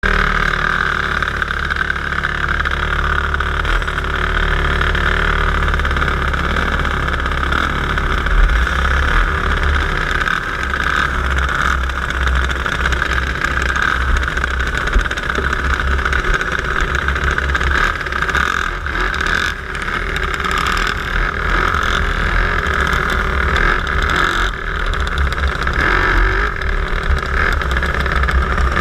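Twin-engine dirt kart's engines running steadily, heard through a camera mounted on the kart, with a heavy low rumble underneath.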